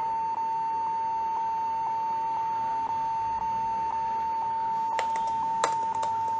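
Compaq Presario laptop beeping continuously: one steady high tone with a slight pulse about twice a second. It goes with a faulty keyboard that needs replacing. A few sharp key clicks come near the end.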